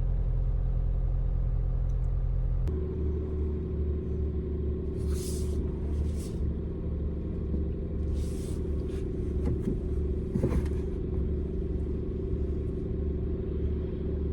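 A car engine running steadily. About three seconds in, its note changes and then settles at a new steady pitch.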